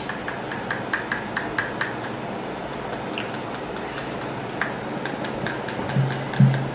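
Light, rapid clicking of hard plastic toy parts, about four to five clicks a second, as the marshmallow stuffer's plastic tube is tapped against a plastic cup to shake chocolate crunches back out.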